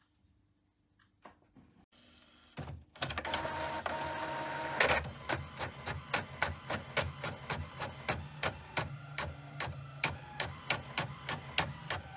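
Home printer starting a print job: after a short near-silent pause it whirrs as it pulls in the page, then settles into a steady rhythm of mechanical clicks, about three a second, as it prints.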